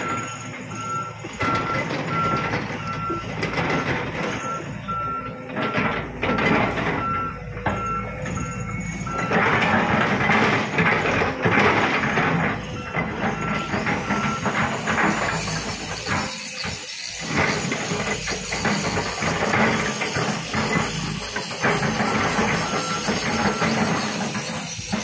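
Volvo crawler excavator working: diesel engine and hydraulics running under load, with a repeating electronic beep alarm sounding on and off over the machine noise. The machine noise gets louder for a few seconds around the middle, and a high hiss joins it in the second half.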